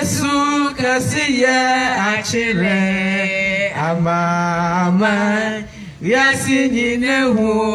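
Voices singing a slow song in Akan (Twi) into handheld microphones, with long held notes.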